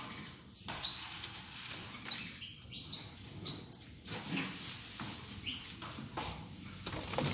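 Short high chirps, about ten of them, from a caged female saffron finch and the green-winged saltator fledgling she is rearing, with soft wing flutters as the finch flits about the cage.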